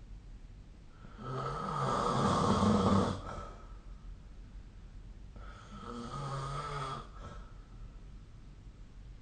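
A sleeping person snoring: two snores about four seconds apart, the first louder and longer than the second.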